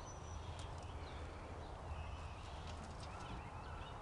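A dog's claws clicking and scrabbling against a tractor as it jumps up at it, with a few faint high chirps from nestling birds hidden in the tractor, over a steady low background rumble.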